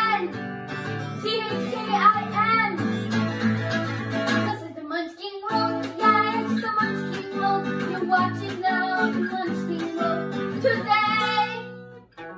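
Background music: strummed acoustic guitar with a singing voice, dropping away near the end.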